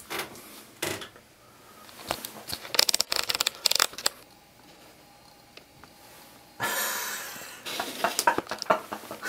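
Scattered clicks and rustling as a camera is handled, with a quick run of sharp clicks about three seconds in and a short hiss about two seconds from the end.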